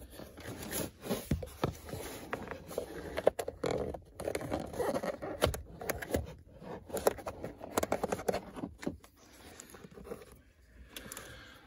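Hands feeding a thin microphone cable through plastic steering-column trim: irregular scraping and rustling of fingers and wire against the plastic, with many small clicks, growing quieter over the last couple of seconds.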